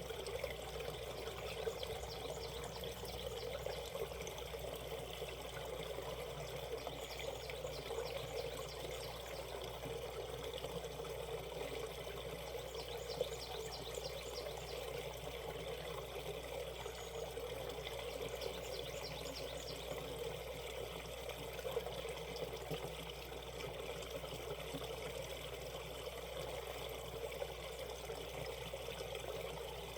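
Mountain valley stream flowing and trickling over rocks, a steady rush of water. A high, rapidly pulsed trill sounds four times over it.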